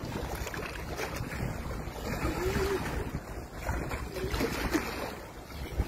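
Wind buffeting the phone's microphone as a steady low rumble, with small waves lapping against a stone seawall.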